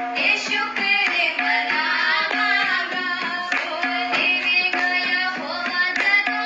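Indian-style devotional worship music with tabla drumming under a melody, in a steady beat.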